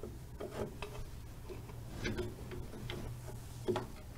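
Light metallic clicks and taps of drum brake hardware being handled: a brake shoe's new hold-down pin, spring and retaining clip being fitted against the shoe and backing plate. A few irregular clicks, the sharpest one near the end.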